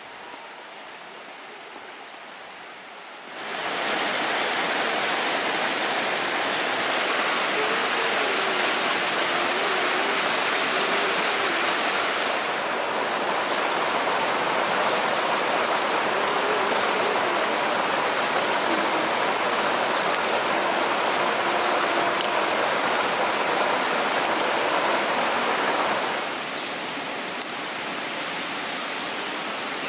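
Steady rushing noise of running water. It starts abruptly a few seconds in and drops to a lower level near the end.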